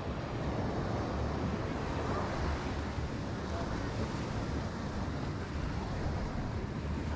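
Caribbean surf washing on the beach, a steady noise, with wind gusting on the microphone as low rumbles now and then.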